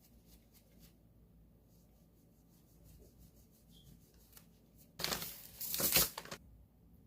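Small items being handled with light scattered clicks and taps, then a loud rustle of packaging, like a plastic bag torn or crinkled, lasting about a second and a half near the end.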